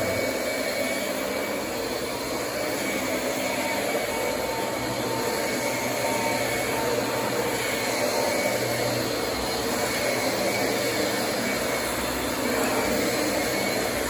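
Dyson DC25 bagless ball upright vacuum running with its brush roll on as it is pushed over a rug: a steady rush of air with a faint high tone over it.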